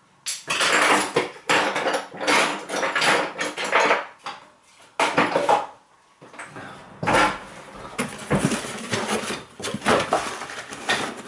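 Hard objects clattering and knocking against each other as they are handled, in irregular spells with brief pauses.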